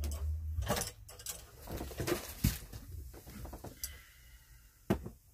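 Fabric rustling and scuffing as a person pulls on a pair of silky pajama pants, with scattered knocks, a sharp one about two and a half seconds in and another near the end.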